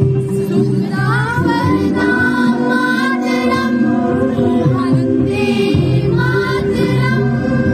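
A group of schoolgirls singing a song together, with long held notes that glide between pitches.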